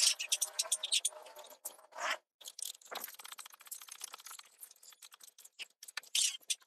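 Ratchet wrench with a spark plug socket clicking as it tightens spark plugs, sped up: a dense run of quick clicks and scrapes.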